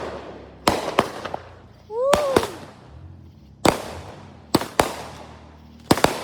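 Fireworks going off: about nine sharp bangs at uneven intervals, some in quick pairs, each trailing off in a short echo.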